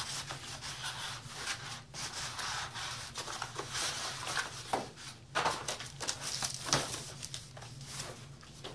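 Cardboard box and molded paper-pulp packaging tray rubbing and scraping against each other as they are handled, in irregular strokes with a few sharp knocks.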